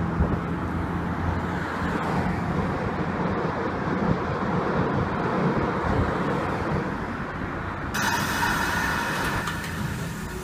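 Electric train running: a steady rumble with a low hum. About eight seconds in it changes abruptly to a brighter hiss and whine as a red-and-white Kintetsu electric train moves along a station platform.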